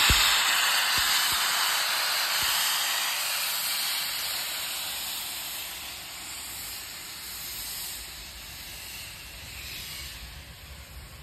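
Bulleid West Country class steam locomotive 34092 City of Wells blowing steam from its cylinder drain cocks: a loud, steady hiss that slowly fades away.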